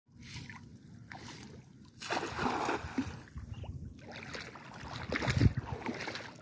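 A cast net thrown out over a shallow river, with a burst of splashing about two seconds in as it lands on the water, then water moving around the wading thrower. A short low thump near the end is the loudest moment.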